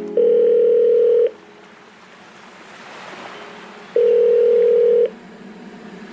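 Two long, steady electronic tones, each held about a second and four seconds apart, like dial-tone beeps in an edited-in music track. A faint rushing sound fills the gap between them.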